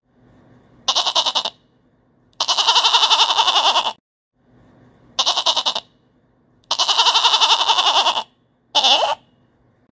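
Goat bleating five times: three short bleats and two long ones of about a second and a half, each with a fast quaver.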